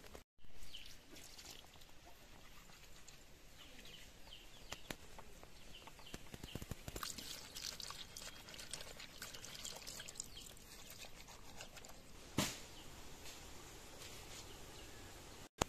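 Hands scrubbing a raw goat head on a stone, the head coated in a wet paste: a steady wet rubbing with many small clicks and crackles, and one short louder knock or splash about twelve seconds in.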